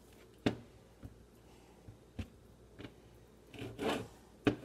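Kitchen knife cutting food, knocking against the cutting surface: five or six sharp knocks spaced about a second apart, with a short rustle of handled food near the end.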